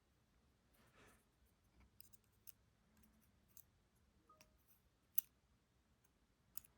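Near silence broken by a few faint, small clicks and ticks of small metal lock parts being handled, with one sharper click about five seconds in.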